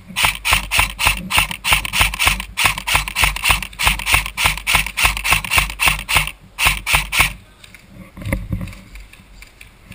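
Airsoft electric rifle firing close by in long strings of rapid shots, about seven a second with brief breaks, stopping about seven seconds in, then a few scattered single shots.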